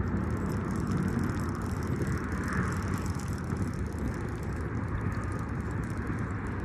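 Wind buffeting the phone's microphone: a steady, low, uneven rumble.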